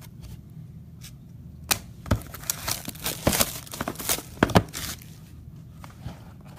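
Wrapping being torn and crinkled as a box of Topps Tier One baseball cards is opened by hand: a quick run of sharp rips and crackles through the middle few seconds.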